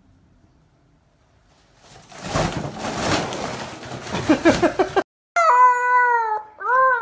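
A cat yowling: a long drawn-out meow starting about five seconds in that bends down in pitch, then a shorter second call. Before it there are a couple of seconds of rough noise ending in quick pitched pulses.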